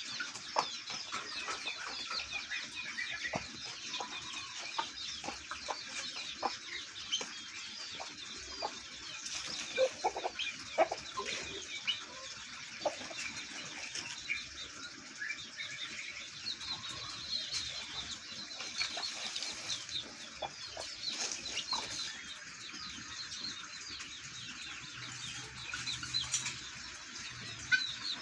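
Poultry yard chorus: many short, high chirps and clucks from guineafowl and caged fowl, running continuously, with scattered sharp clicks.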